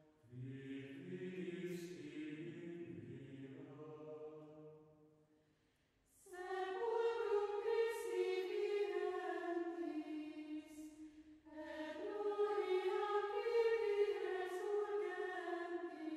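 Choir singing slow, held phrases in several voices. A lower-pitched phrase breaks off about five seconds in, and after a short pause two higher phrases follow.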